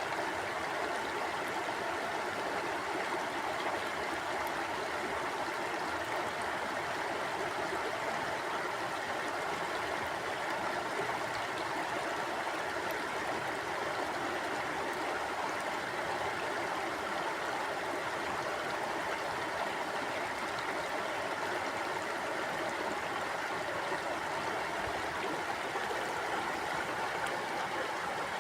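Mountain stream flowing steadily, an even rush of water with no changes.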